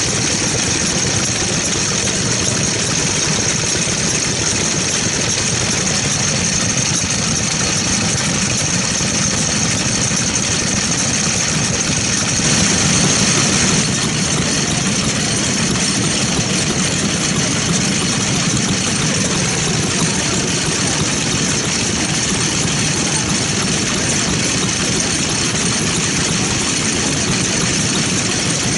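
The Katsura engine of an old Sato walk-behind tiller, running steadily, with a steady high-pitched hiss above it.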